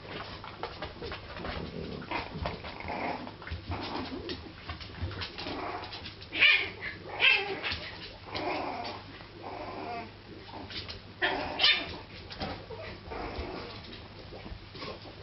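French bulldog puppy yapping at a cat: a string of short, high yips and barks mixed with whiny sounds, coming in irregular bursts. The loudest barks come about six to seven seconds in and again near twelve seconds.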